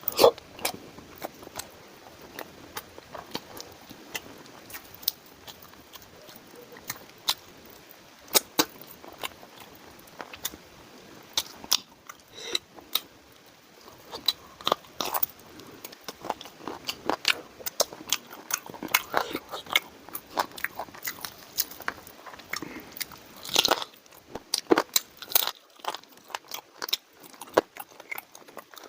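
A person eating close to the microphone: irregular crisp bites and chewing with wet mouth clicks, some bites louder and crunchier than others.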